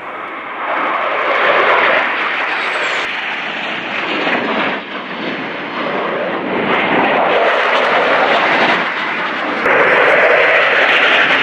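Jet engine noise from the Thunderbirds' F-16 Fighting Falcons flying a formation demonstration overhead: a loud rushing roar that swells and eases in waves as the jets pass and climb, loudest about ten seconds in.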